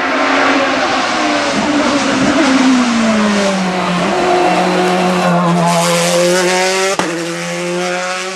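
Hillclimb racing car's engine at high revs, its pitch falling over the first few seconds as it goes past and slows, then holding and slowly rising again. A sharp click sounds about seven seconds in.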